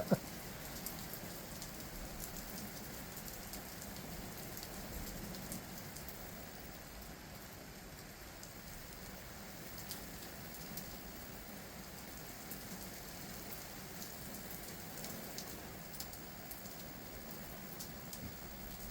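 Heavy rain falling steadily, a constant hiss with the patter of drops hitting surfaces.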